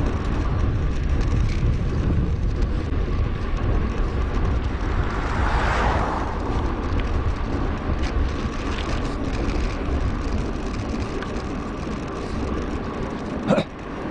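Wind rumbling on an action camera's microphone during a bicycle ride on a road, with a vehicle whooshing past about six seconds in and a single sharp knock near the end.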